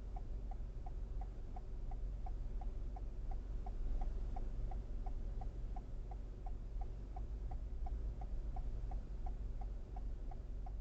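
A car's turn-signal indicator clicking evenly, about three clicks a second, over the low rumble of the car heard from inside the cabin.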